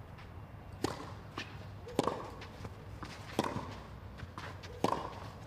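Tennis serve followed by a rally: four sharp racket-on-ball hits, each a little over a second apart, with fainter ticks between them.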